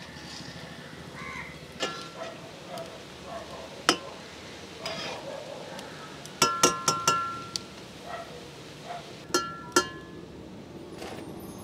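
Brass slotted spoon clinking against an iron kadhai as fried gulgule fritters are stirred and scooped out of the oil: single ringing knocks, then a run of four quick strikes about halfway through and two more near the end.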